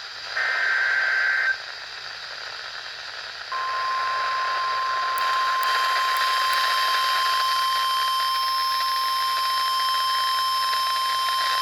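NOAA Weather Radio alert: a short burst of buzzy SAME digital data tones about half a second in. About three and a half seconds in, the steady single-pitch 1050 Hz warning alarm tone starts and holds, signalling that a warning (here a flash flood warning) is about to be read.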